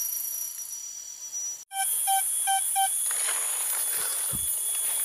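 Steady high-pitched drone of forest insects. About two seconds in come four short, evenly spaced electronic-sounding beeps. After that, scattered knocks and rustling of a spade working into dry leaf litter and soil, with a dull thud near the end.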